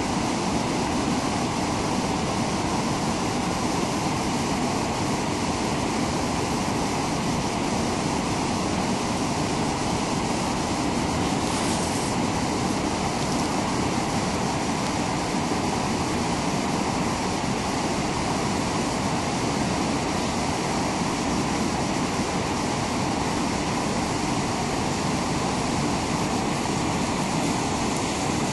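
Steady rush of a whitewater river running over rapids.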